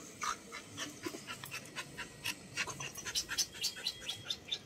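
A dog panting in quick, short breaths, several a second and coming faster in the second half, while rolled on its back in rough play.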